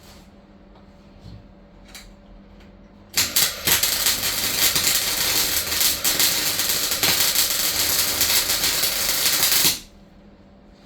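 Welding arc crackling on the van's floor panel: a steady, dense crackle that starts abruptly about three seconds in, runs for about six and a half seconds, and cuts off sharply. A few faint clicks come before it.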